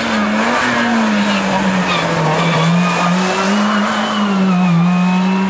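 Race car engine running hard as the white Peugeot hatchback drives past and pulls away down the slalom course, its note dipping and rising in pitch.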